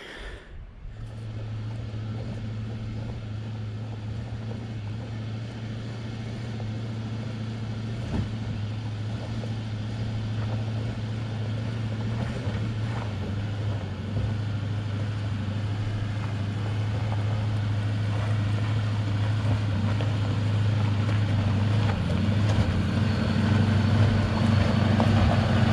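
A truck's engine running steadily under load, its low drone growing gradually louder over the whole stretch.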